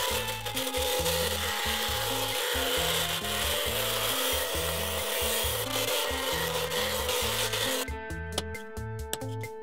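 Homemade bandsaw blade cutting through steel plate: a steady hiss that stops about eight seconds in.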